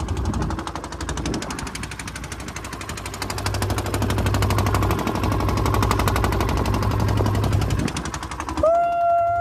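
Small fishing boat's engine running with a rapid, steady knocking beat, louder from about three seconds in. Near the end it cuts off suddenly and a long held, wavering note starts.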